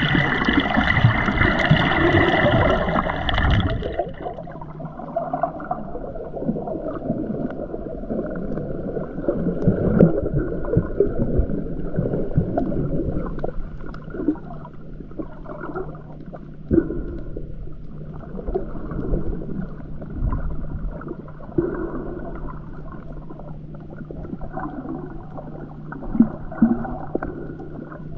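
Water splashing at the surface for about four seconds, then the sound turns muffled as the camera goes underwater. After that comes water sloshing and gurgling over a steady low hum.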